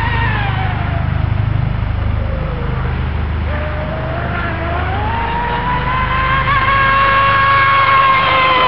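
Castle 1515 2200kV brushless motor of an electric RC tunnel-hull boat, running on 5 cells, whining at high speed. Its pitch falls as it eases off; about three and a half seconds in it climbs back up and then holds high and steady. A low rumble runs underneath.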